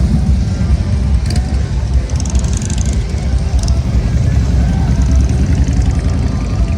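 Motorcycle engines running loud with a deep, uneven low rumble.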